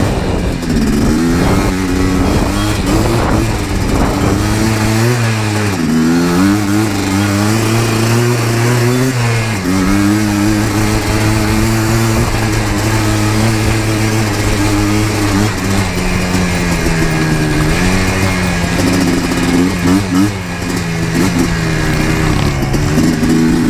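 Yamaha Blaster 200's single-cylinder two-stroke engine being ridden hard, its pitch rising and falling with the throttle through mini wheelies, with a steadier stretch in the middle.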